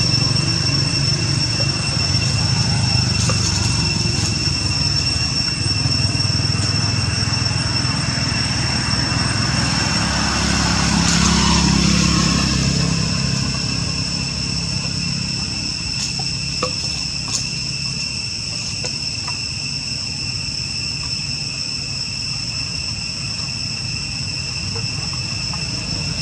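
Insects droning in a steady, high, unbroken tone over a low engine rumble that swells and fades again about halfway through, as of a vehicle going by. A couple of light ticks come a few seconds later.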